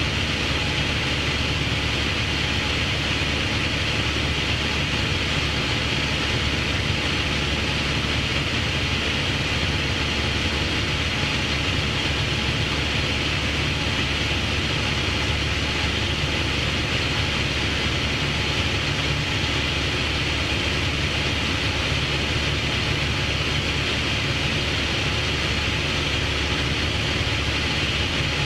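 Light aircraft's engine and propeller running steadily in flight, an even drone with hiss heard from inside the cockpit.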